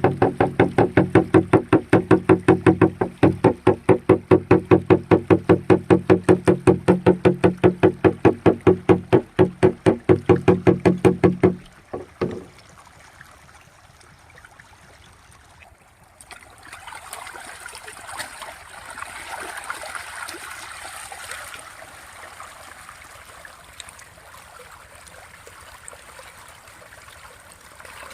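A steady, rapid pulsing beat, about four strokes a second, that stops abruptly about twelve seconds in. After a few quieter seconds, water trickles and splashes until the end.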